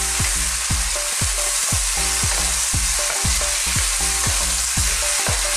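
Garlic, ginger, onion, chili and tomato sizzling in hot oil in a frying pan while a wooden spatula stirs them. A low, even beat of about three knocks a second runs underneath.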